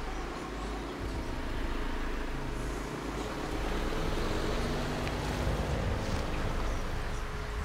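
A car driving on the road: a steady low rumble of engine and tyres, with engine tones that shift in pitch partway through.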